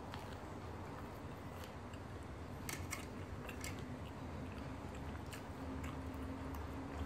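Chewing a mouthful of flaky roti prata and tearing the prata apart by hand, with scattered small crackles and a few sharper clicks about three seconds in, over a steady low hum.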